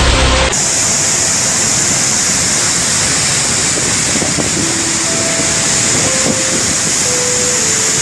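Steady loud rush of a muddy floodwater torrent churning and spraying, after a low rumble that cuts off about half a second in.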